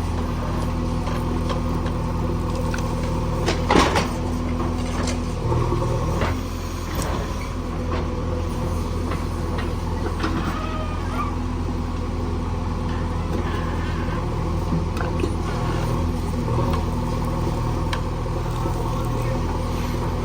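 Diesel engine of a JCB backhoe loader running steadily, with a loud metal clank about four seconds in and lighter clatter after it.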